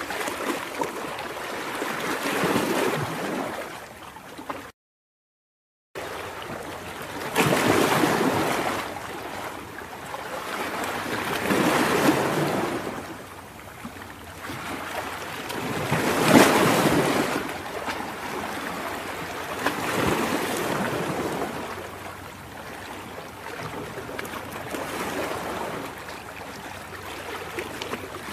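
Ocean surf breaking on a beach: a rushing wash that swells and fades every few seconds. The sound drops out to dead silence for a little over a second about five seconds in.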